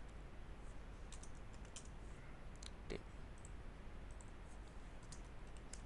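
Faint scattered keystrokes on a computer keyboard as code is typed, with one louder key click about three seconds in, over a steady low hum.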